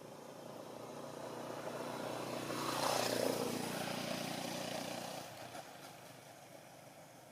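A motor vehicle passing by, growing louder to a peak about three seconds in and then fading away.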